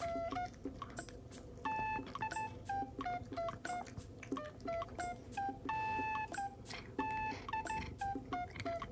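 Background music: a simple, bouncy melody of short, clear electronic notes, about four a second, over a soft lower accompaniment.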